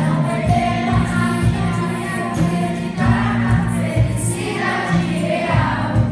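Music: a choir singing over instrumental accompaniment with a steady beat.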